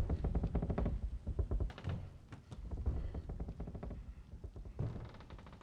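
Film soundtrack: a low rumble with a scattered run of soft knocks and thunks.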